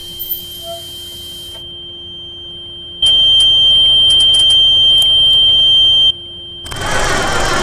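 Car's electric warning buzzer sounds one steady, high-pitched tone for about three seconds, with a few sharp clicks during it. Near the end the engine starts cranking loudly.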